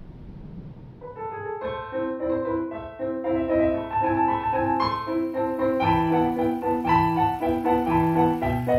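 Piano music of the film's score, entering softly about a second in and building into a flowing melody, with low bass notes joining about six seconds in.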